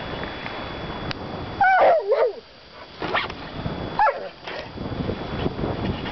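A dog giving two short, high whining yelps, the louder one about two seconds in and another about four seconds in, with rustling as it paws at a plastic tarp, excited by the scent of an animal hidden behind it.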